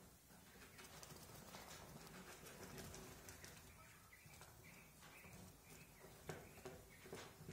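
Young Japanese quail giving a few faint, short, soft calls, most of them in the middle, over small ticks and rustling as they move and peck in the straw bedding.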